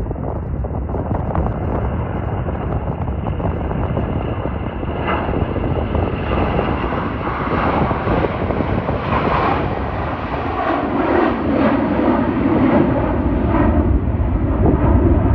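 Gulfstream G650's twin Rolls-Royce BR725 turbofans at takeoff power, a jet roar that grows louder and brighter over the last several seconds. Gusty wind buffets the microphone underneath.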